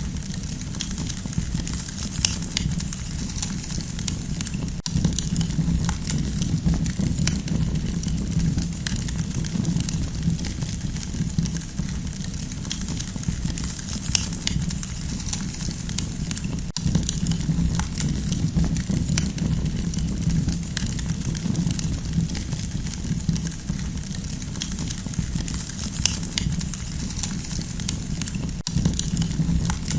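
Campfire crackling: a steady low rumble of burning, with many small sharp pops and snaps scattered irregularly throughout.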